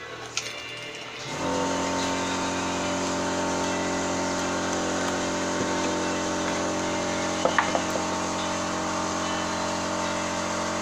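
Mini benchtop wood lathe's motor switched on about a second in, then running steadily with an even, pitched hum. A few light clicks about two-thirds of the way through.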